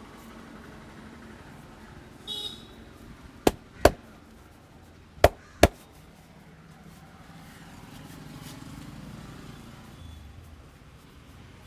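Four sharp hand slaps of a massage, in two quick pairs, over light street traffic.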